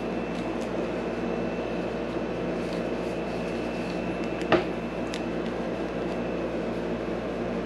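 Steady machine hum with many low tones and a faint high whine over it; a single sharp click about four and a half seconds in.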